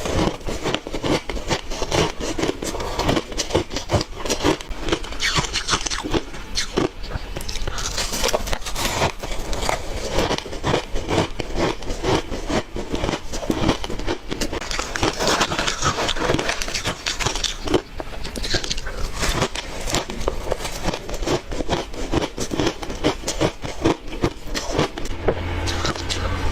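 Close-up crunching and chewing of hard red ice: dense, irregular cracks and crunches as the ice is bitten and ground between the teeth. A steady low hum comes in near the end.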